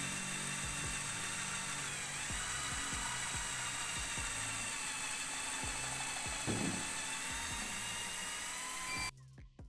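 A steady high-pitched whine over a hiss, like a small electric motor running, with faint low knocks underneath; it cuts off suddenly near the end.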